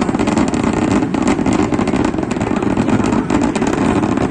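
Dense, continuous barrage of fireworks explosions, the bangs merging into a steady rumble shot through with many sharp cracks.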